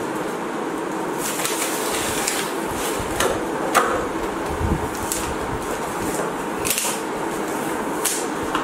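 Cardboard battery carton being opened by hand: a handful of short scrapes, rustles and crisp snaps from tape, flaps and packing, a few seconds apart, over a steady hum.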